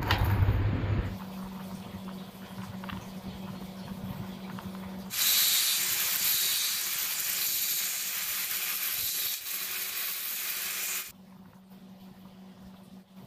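A low steady hum for about five seconds, then a loud, even hiss lasting about six seconds that cuts off suddenly.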